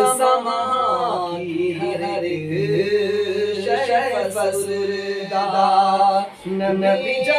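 A man singing a naat, an Urdu devotional poem, unaccompanied, in long held notes with ornamented turns, taking a short breath about six and a half seconds in.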